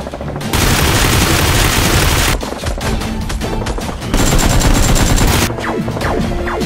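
Two long bursts of rapid automatic gunfire sound effects, the first about half a second in and the second about four seconds in, over background music.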